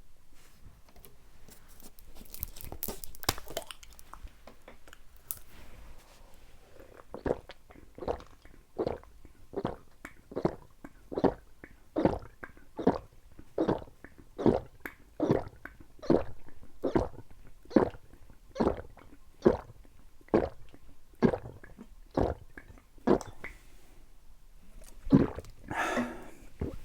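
Close-up gulping of a sports drink downed in one go: a steady run of swallows a little under a second apart, about twenty in all, after a few seconds of small clicks and rustles. A louder mouth sound comes near the end.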